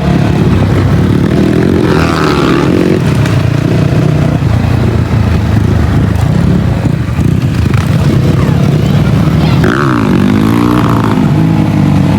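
Dirt bike engine running under way, its pitch rising and falling with the throttle, with revs about 2 seconds and 10 seconds in.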